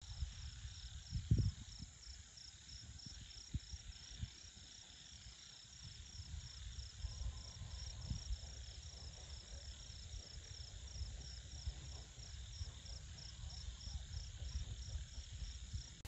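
A night insect, cricket-like, chirping faintly in a steady run of short high-pitched pulses, about three a second, over a low rumble with a few soft thumps.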